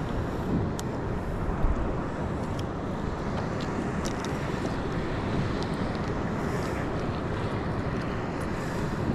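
Wind buffeting the microphone as a steady low rush, with a few faint light clicks scattered through it.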